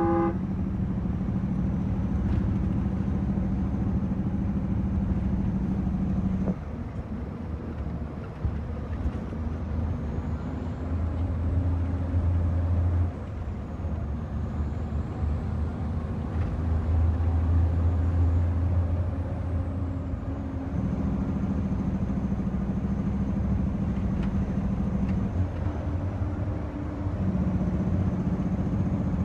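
Heavy diesel truck engine heard from inside the cab while driving. Its pitch steps down and back up several times as the driver works through the gears. A horn cuts off right at the start.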